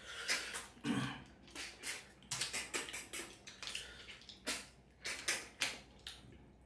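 Close-up eating sounds of two people eating pork and snail curry by hand: wet chewing, lip-smacking and slurping in quick, irregular bursts, several a second.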